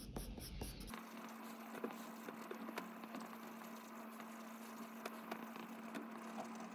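Soft charcoal pencil scratching on paper in many quick, irregular short strokes, drawing fine beard hairs. A faint steady hum at one pitch runs underneath from about a second in.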